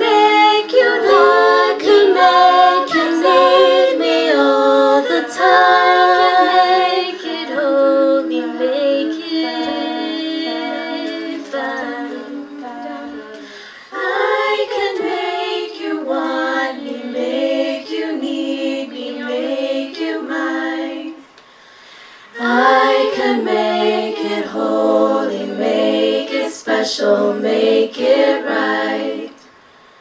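A women's a cappella group singing in close harmony into microphones, several voice parts together with no instruments. The singing drops away briefly twice, about halfway through and again about two-thirds of the way in.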